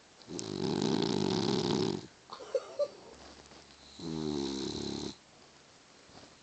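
A Boston terrier snoring loudly in its sleep: two long snores, the first rough and nearly two seconds long, the second shorter with a buzzing, pitched tone. Two short clicks come between them.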